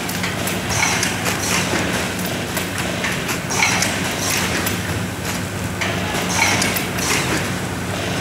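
Automatic pouch-packing machines running: a steady hum under repeated clacks with a short hiss, roughly once a second, as the machine cycles and turns out sachets.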